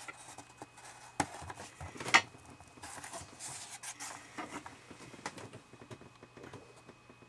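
Clear plastic blister pack and card backing of a packaged action figure being handled and turned over in the hands: scattered crinkles and clicks, the sharpest about two seconds in, growing sparser toward the end.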